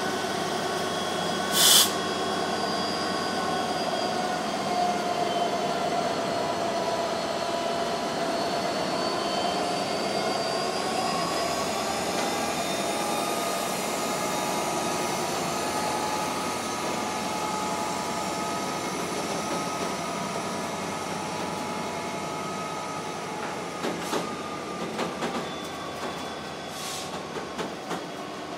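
Class 66 diesel locomotive's EMD two-stroke V12 engine running with a steady drone as it passes slowly, with a brief sharp sound about two seconds in. Near the end, loaded ballast hopper wagons click over rail joints as they roll past.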